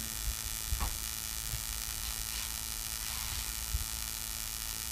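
Steady electrical hum with background hiss from the recording chain in a pause between spoken phrases, with a few faint ticks.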